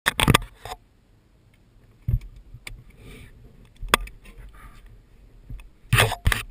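Handling noise on a helmet-mounted action camera: several sharp knocks and bumps a second or two apart, with faint rubbing and rustling between them and a close pair of heavier bumps near the end.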